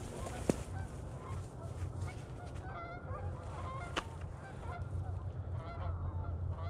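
Canada geese honking as flocks lift off their roost, many short calls overlapping throughout. Two sharp clicks cut in, one about half a second in and one at four seconds, over a steady low rumble.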